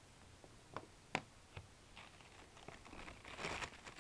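Three sharp knocks as the plastic watch is handled on a wooden table, the loudest a little over a second in. Then a clear plastic bag crinkles as it is handled, loudest about three and a half seconds in.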